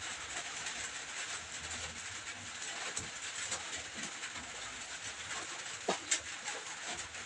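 Low steady hiss of background room noise, with a few faint clicks about three and six seconds in.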